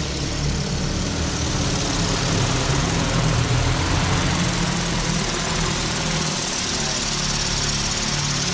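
DJI Agras T40 agricultural drone flying overhead, its coaxial propellers giving a steady, loud rotor drone with low humming tones beneath.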